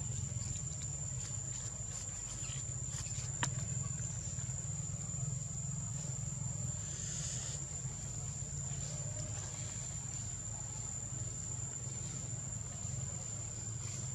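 A steady, high-pitched insect drone from the forest, one unbroken tone, over a constant low rumble, with a single faint click about three and a half seconds in.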